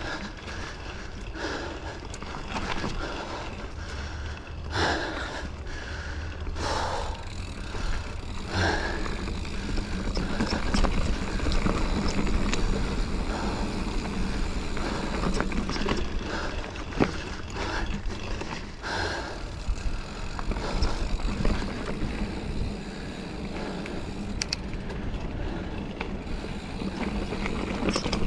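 Mountain bike rolling along a rocky dirt trail: continuous tyre and trail noise with frequent short rattles and knocks from the bike, over a steady rumble.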